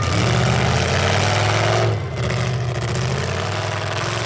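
Demolition derby pickup truck's engine revving under heavy throttle as it pulls away, the pitch climbing for about two seconds, dipping briefly, then running on.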